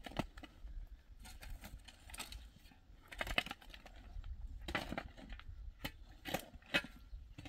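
Metal shovel blade scraping and chopping into dry, stony soil in short, irregular strokes, with small stones clinking.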